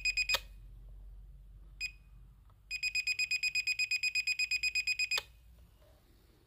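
High electronic beeping from the SJRC S70W drone set, in a fast rhythm of about seven beeps a second. A run of beeps cuts off with a click just after the start. A single beep follows, then a second run of about two and a half seconds, which also ends with a click.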